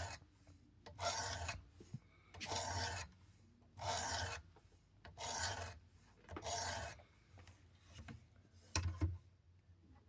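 400-grit sharpening stone on a Work Sharp Precision guided sharpener rasping along an OTF knife's blade edge in even strokes, about one every 1.3 seconds, while a burr is being raised on the first side. The strokes stop after the fifth full one, and a couple of sharp knocks follow near the end.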